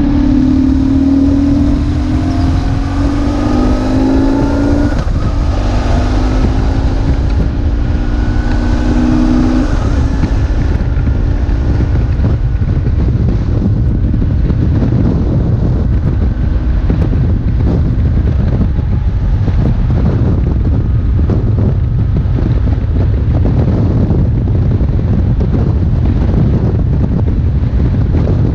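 BMW R1150GS's boxer twin engine riding under way, with heavy wind rumble on the microphone. For roughly the first ten seconds the engine note rises and steps back down a couple of times as it pulls through the gears; after that, wind rush covers most of it.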